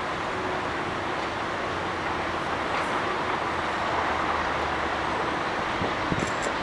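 Steady hum of distant city traffic, with a faint low rumble through the middle few seconds.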